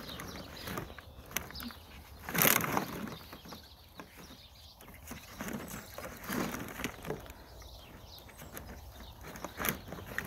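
Empty plastic water bottles crinkling and knocking against each other as a puppy clambers through a kiddie pool filled with them. The rustle comes and goes unevenly, loudest about two and a half seconds in.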